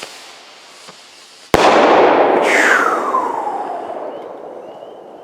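Firework rocket bursting in the air: one sharp bang about a second and a half in, followed by a loud hissing, crackling tail that falls in pitch and fades out over a few seconds.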